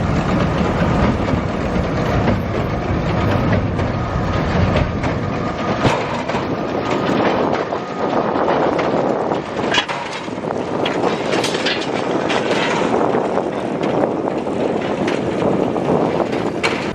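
A tractor pulling a large square baler, the engine and baler machinery running with a steady, dense clatter.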